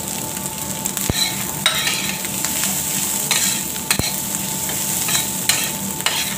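Fried rice being stir-fried in a metal frying pan: steady sizzling, with a metal spoon scraping and turning the rice against the pan in repeated short strokes.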